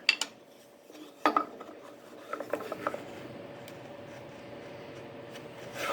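Small metal tool parts being handled and fitted together: a few scattered clicks, clinks and knocks, with a faint steady hum coming in a few seconds in.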